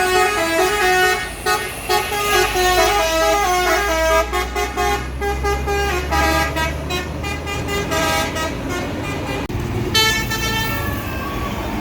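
Tour bus basuri telolet horn playing a melody of short stepping notes. A low engine rumble sits under it from about four seconds in. The tune breaks off sharply near the end and starts again.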